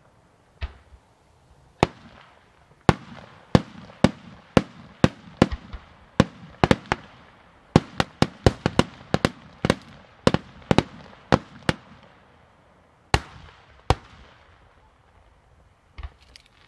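Aerial fireworks shells bursting in a rapid, irregular string of sharp bangs, each with a short echoing tail. The bangs come thickest in the middle and thin out to a few isolated reports near the end.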